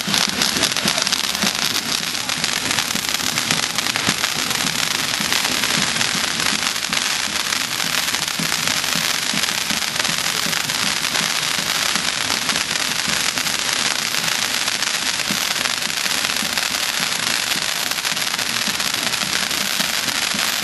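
Pyrotechnic spark fountains hissing with a dense, steady crackle of tiny pops.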